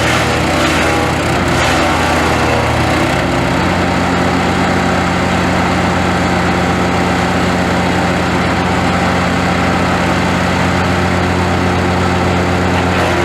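Polexim GTS-1500E drum wood chipper's engine running steadily. In the first couple of seconds there are a few sharp knocks. After that it runs on with an even hum.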